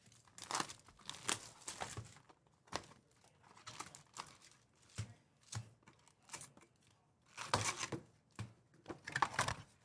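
Foil-wrapped trading-card packs crinkling and rustling in irregular bursts as they are pulled out of a hobby box and stacked.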